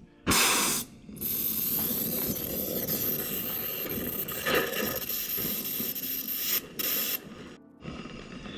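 Handheld gas torch burning with a steady hiss, heating a stuck subframe bolt so it will break free. A short louder burst comes near the start, and the hiss drops away about seven seconds in.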